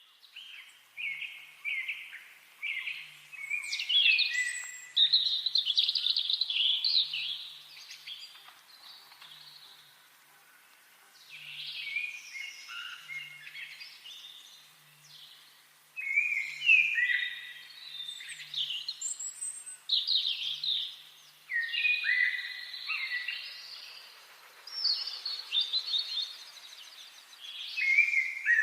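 Several songbirds singing in a forest, their short chirping phrases overlapping, with a quieter lull partway through.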